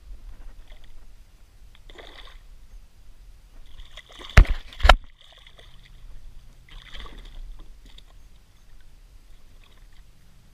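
Small splashes as live pilchards are tossed by hand into the water as chum. About halfway through come two sharp knocks half a second apart, the loudest sounds.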